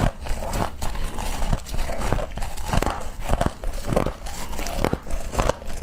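Someone biting and chewing humidifier frost close to the microphone: a run of crisp crunches, about two or three a second.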